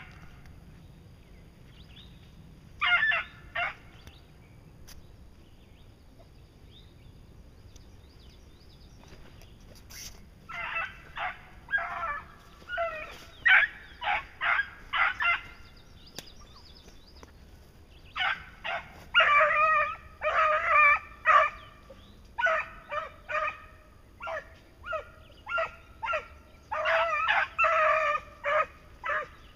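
Beagles baying as they run a scent trail. A few bays come about three seconds in, then a run of quick, overlapping bays from about ten seconds in, busiest over the last ten seconds.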